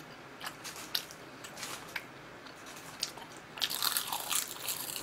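Close-miked eating: faint crackles as dry seasoned laver is picked up with chopsticks, then crisp crunching and chewing as a mouthful is bitten, loudest from about three and a half seconds in.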